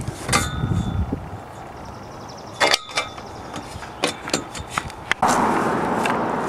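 Sharp clicks and knocks from a hand working the cap on a galvanized steel fence post, the strongest near the middle and a quick run of them about four seconds in. From about five seconds in a steady rushing noise takes over.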